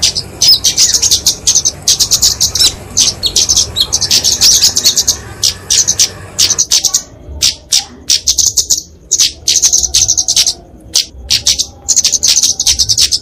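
Flowerpecker (kemade) giving fighting calls: bursts of rapid, high-pitched ticking trills, dense at first and breaking into more separate ticks and shorter bursts about halfway through.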